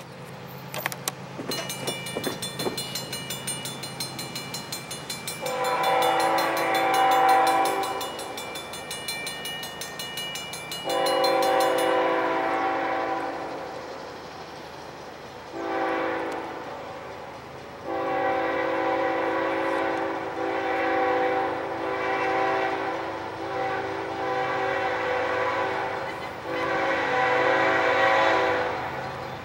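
Air horn of an approaching CN freight's lead GE ES44DC locomotive blowing the grade-crossing signal: a long blast, a second long blast, a short one, then a long drawn-out blast that swells and dips. A fast, even, high ringing sounds through the first twelve seconds, over a low steady rumble.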